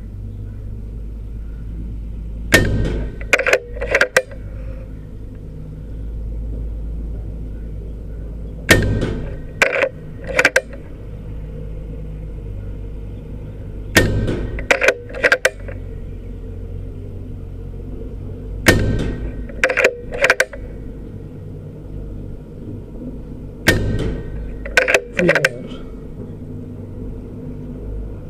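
Skout Epoch PCP air rifle firing five shots at a steady pace, one about every five seconds. Each shot is followed about a second later by two quick sharp clicks, the side lever being cycled to load the next pellet. A steady low hum runs underneath.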